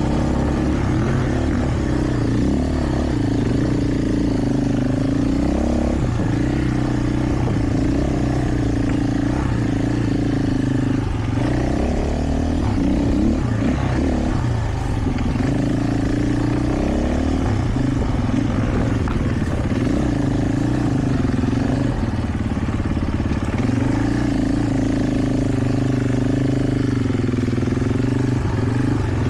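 KTM 450 EXC single-cylinder four-stroke enduro motorcycle being ridden off-road, its engine pitch rising and falling again and again as the throttle is opened and closed.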